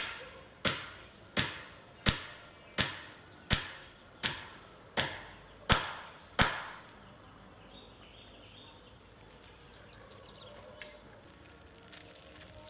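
A series of about ten sharp knocks at a steady pace, a little over one a second, which stop about six and a half seconds in, leaving quiet outdoor background.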